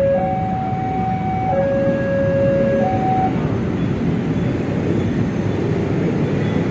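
Two-tone siren alternating between a higher and a lower note, each held about a second and a half, stopping about three seconds in, over steady street noise.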